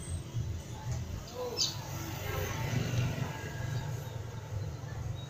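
Steady low rumble of a motorcycle underway, with a short high chirp about one and a half seconds in.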